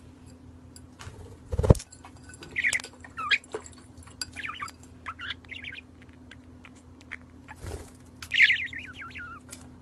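A small white parrot chirping in short bursts while it scrabbles inside a glass tumbler, with small clicks of claws and beak on the glass and two louder knocks, about 2 s in and near the end.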